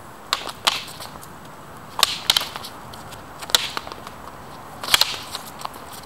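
Wooden practice rapiers knocking together during sparring: sharp clacks in singles and quick pairs, every second or so.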